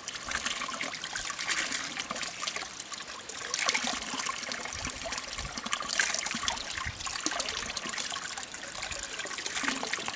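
Spring water running from a wooden spout in a steady trickle and splashing, with cupped hands in the stream at first.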